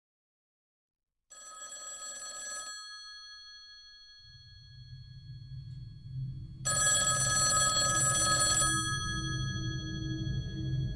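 Telephone bell ringing twice in the usual on-off pattern, each ring about a second and a half to two seconds long, with the bell tones hanging on briefly after it. A low steady drone comes in about four seconds in and runs under the second ring.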